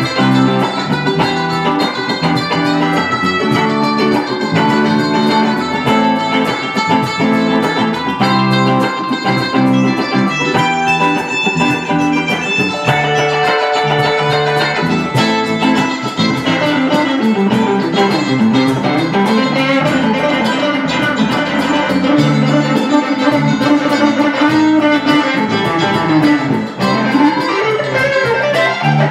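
Live band music: electric guitars over bass guitar and cajón. Guitar notes bend and slide up and down in the later part.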